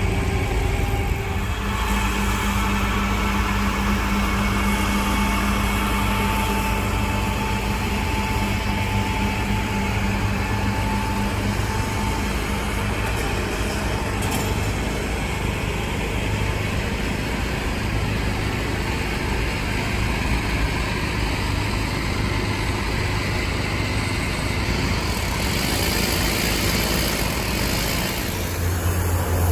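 A motor running steadily, with a continuous low rumble and a steady hum through the first several seconds.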